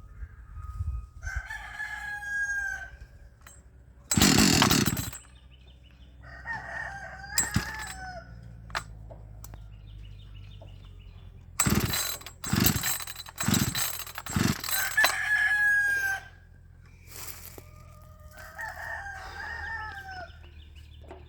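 Husqvarna 555 chainsaw being pull-started with sharp yanks on the starter cord: one pull about four seconds in, then a quick run of four or five pulls near the middle, without the engine settling into running. A rooster crows about four times between and over the pulls.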